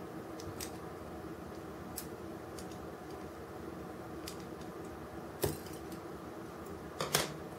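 Small diecast-metal and plastic model crane parts clicking and tapping as they are handled and pried apart, with a sharper click about five and a half seconds in and a quick cluster of clicks near the end, over a faint steady hum.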